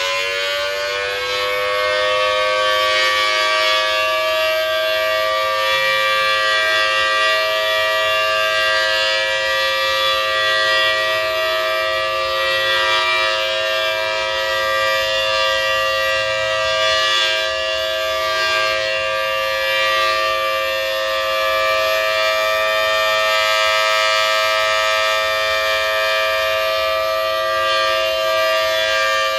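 Federal Signal Thunderbolt 1000T tornado siren finishing its wind-up in the first second, then holding a steady two-tone wail.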